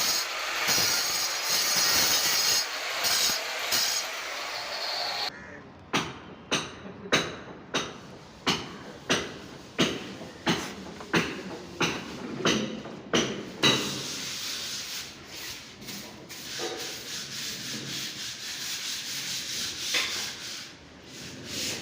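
Hand rubbing strokes on a hard surface, like sanding or scrubbing. A dense rubbing noise is followed, about six seconds in, by a run of distinct strokes at about one and a half a second, which gives way to softer steady rubbing.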